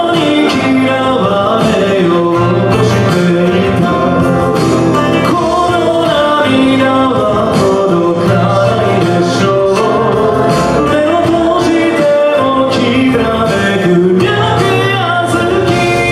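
Men singing a song live into handheld microphones, over instrumental backing music with a steady beat.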